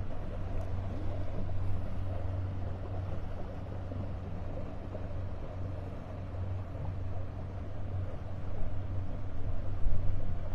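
Boat motor running steadily while cruising, a constant low hum under a wash of engine and water noise, with a few louder surges near the end.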